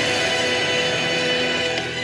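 Background music with sustained chords.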